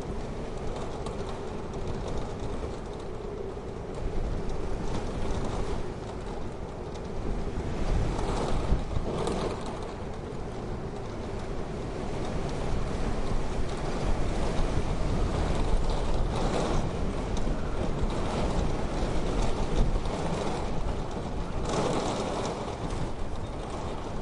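Snowstorm wind, a continuous low rushing noise that rises and falls in gusts every few seconds.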